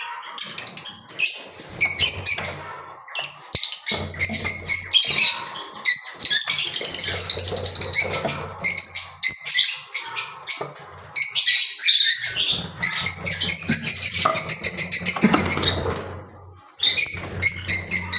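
Lovebirds chattering: fast, high-pitched chirps and squawks running on almost without a break, with a low hum coming and going underneath.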